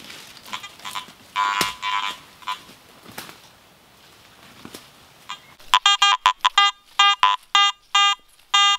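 Garrett AT Gold metal detector sounding a target: a quick run of about ten short, loud beeps of the same pitch starting about halfway through, as the coil sweeps back and forth over a buried piece of metal.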